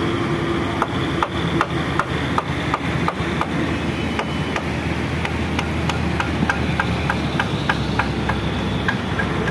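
Vehicle engine running steadily at low speed, with a regular light ticking a few times a second that quickens in the second half.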